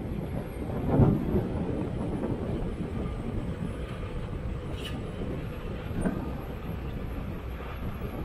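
Diesel engines of a Sumitomo 490 excavator and a crawler loader working, a steady low rumble that surges louder about a second in and again, less strongly, about six seconds in.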